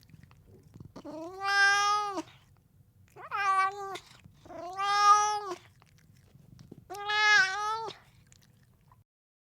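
Siamese cat meowing four times at feeding time, each meow a drawn-out, pitched call of about a second.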